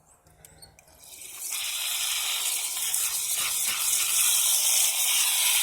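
Water running into the wash tub of a portable twin-tub washing machine, filling it with clean water for the rinse cycle. The flow starts about a second in, swells over half a second, then runs as a steady, loud gush.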